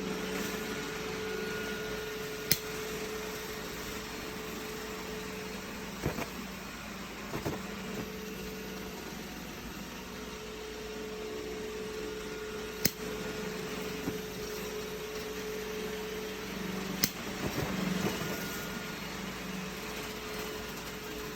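Steady hiss with a faint hum, broken by three sharp single clicks, about two and a half, thirteen and seventeen seconds in, with a few softer knocks between them. The clicks are typical of a butane torch's push-button piezo igniter.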